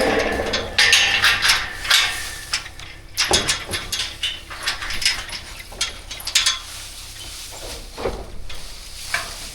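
Irregular clanks and knocks, many close together in the first few seconds and then more spread out.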